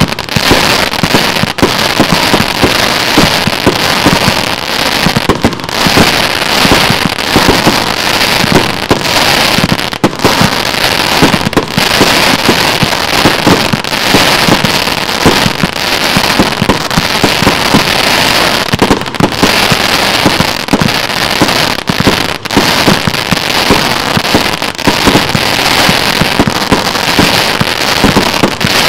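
Rubro Transbomber 144's (RVW 561) 144-shot fireworks cake firing in rapid succession: launches and star bursts overlap into a dense, continuous crackle with hardly a break.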